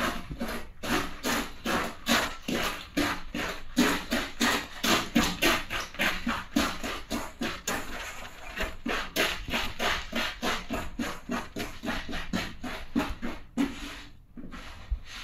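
Potato chips crunching and crackling under a Converse sneaker sole as they are crushed, several sharp crunches a second, with a short lull about two-thirds of the way through.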